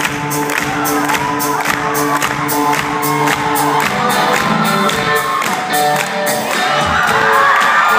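Live band playing: a held keyboard chord over a steady drum beat, the chord changing about halfway through. Crowd cheering and whooping over the music, louder near the end.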